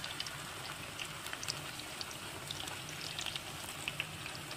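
Battered zucchini flowers deep-frying in hot oil: a steady sizzle dotted with many small crackling pops.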